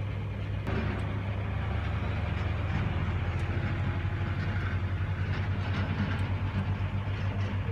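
Tractor diesel engine idling with a steady, evenly pulsing low throb while diesel is pumped from a dispenser into the tank.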